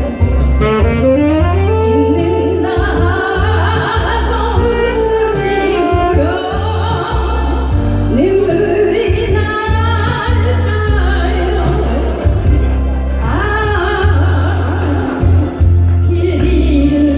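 Korean pop ballad sung live over a backing track with a steady heavy bass line; the melody wavers with vibrato, with a saxophone-like instrumental line.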